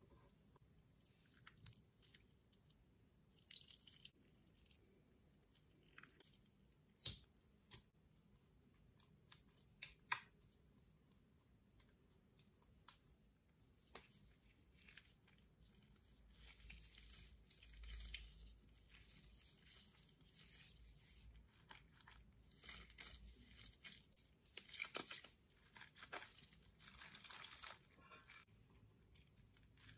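Faint sticky crackling and scattered sharp clicks as hands squeeze and pull apart slime from a cut-open stress ball. Later come longer stretches of denser crackling and squishing as an Orbeez-filled glove squishy is squeezed and handled.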